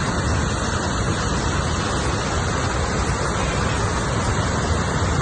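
Steady, loud rushing of fast-flowing floodwater.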